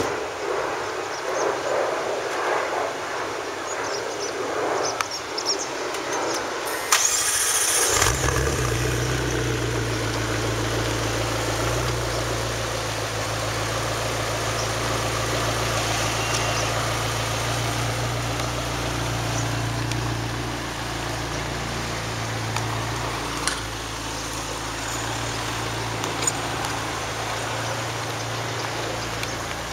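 McLaren MP4-12C's twin-turbo V8 with sports exhaust starting about seven seconds in with a loud burst, then running at a steady idle.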